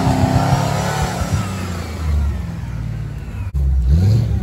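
Land Rover trials vehicles' V8 engines revving under load on a steep off-road climb, the pitch rising and falling with the throttle. A sudden break about three and a half seconds in leads to a second engine revving up.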